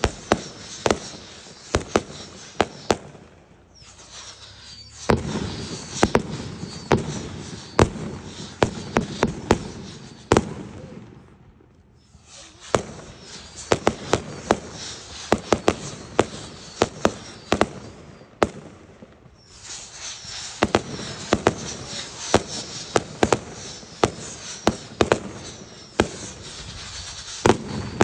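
Aerial fireworks bursting overhead in a rapid series of sharp bangs, with brief lulls about four, eleven and nineteen seconds in.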